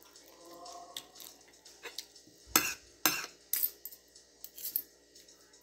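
Metal fork and spoon clinking and scraping against a plate, with two louder clinks about halfway through and several lighter ones after.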